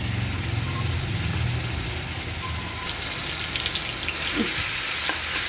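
Coarse onion, garlic, ginger and green chilli paste sizzling in hot oil in a kadhai, with a metal ladle stirring and clicking against the pan. The sizzle grows brighter about three seconds in, and a low hum fades over the first two seconds.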